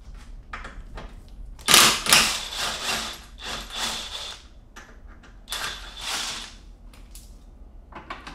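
Cordless DeWalt driver running in two bursts, the first about two and a half seconds long and the second about a second, with a dense mechanical rattle, backing out the tight Torx bolts that hold the shock mounts and bumper support to the chassis.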